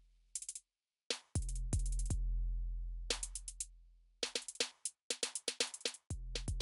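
Background electronic music: a drum-machine beat of short sharp hits over low held bass notes, breaking off briefly between phrases.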